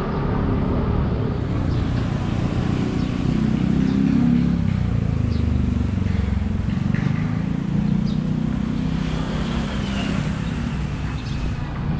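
Road traffic noise from cars and motorbikes running and passing on a street: a steady low rumble with engine tones rising and falling as vehicles go by.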